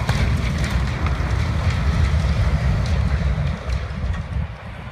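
Low rumble from a toppled water tower's tank right after it slams into the ground, with scattered crackles of breaking debris and wind buffeting the microphone; it eases off near the end.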